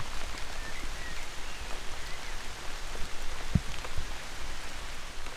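Steady light rain falling on grass and tree leaves, with a few louder single drips, one near the start and one about three and a half seconds in.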